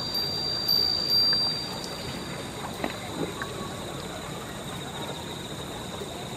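Steady outdoor background hiss with a thin, high, steady tone throughout. A stronger high whistling tone runs through the first two seconds, and a few faint short chirps come around the middle.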